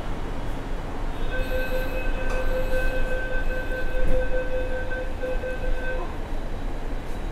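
Metro train rumbling, with a steady electronic warning tone sounding for about five seconds over it, the door-closing alert that follows the 'stand clear of the doors' announcement.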